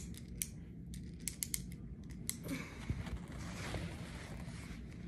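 Small BBs clicking and rattling as they are poured into a BB gun loader: a string of light, sharp clicks, then a rougher rattling stretch a little after halfway.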